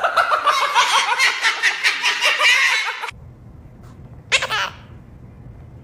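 High-pitched laughter in quick, even pulses, about four or five a second, for some three seconds, then one brief high call a little over four seconds in.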